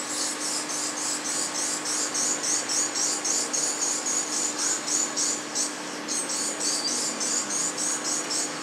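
An insect chirping in a fast, even rhythm of about six short, high-pitched chirps a second, over a faint steady hum.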